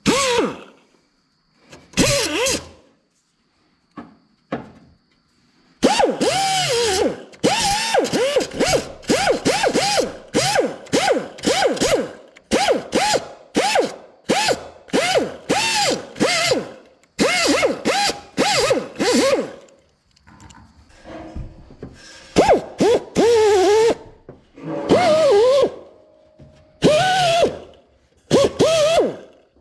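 Metal being filed by hand over a rough weld on steel sheet metal, in quick back-and-forth strokes of about two a second, each stroke rasping with a squeal that bends in pitch. The filing pauses for a few seconds early on and again about two-thirds of the way through.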